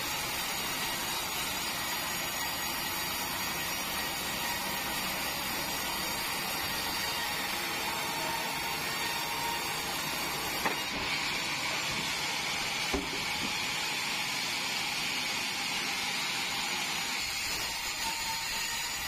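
Sawmill band saw running with a steady mechanical din, with two brief knocks partway through.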